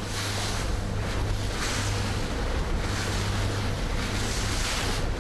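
Open-sea wind and water noise: waves washing and wind buffeting the microphone in rushes that swell and ease every second or so, over the steady low hum of a trolling sport-fishing boat's engine.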